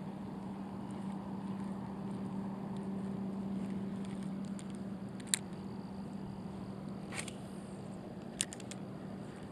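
A steady low hum over outdoor background noise, with a sharp click about halfway through and a few more clicks near the end.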